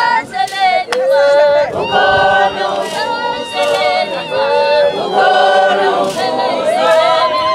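A group of women singing a Zulu traditional wedding song unaccompanied, several voices together in harmony, in short phrases with changing notes.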